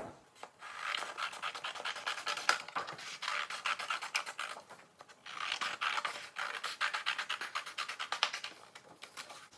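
Scissors cutting through a sheet of paper: two long runs of quick snips, with a short break about five seconds in.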